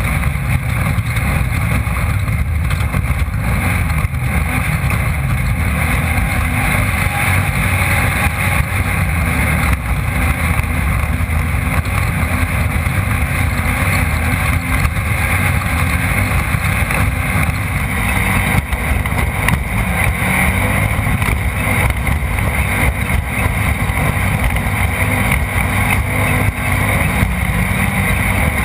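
Off-road race car's engine running hard and steadily, heard through a camera mounted on board.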